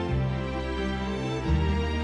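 Slow, sad-sounding background music with sustained chords and a bass line that changes note about every second.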